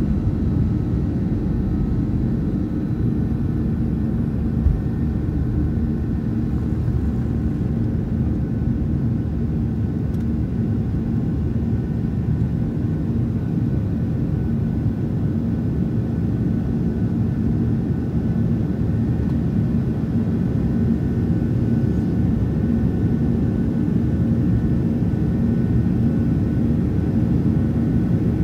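Cabin noise of a Boeing 737-800's CFM56-7B turbofans at takeoff power through the end of the takeoff roll, liftoff and initial climb: a steady rumble with a few steady humming tones. A single thump about five seconds in.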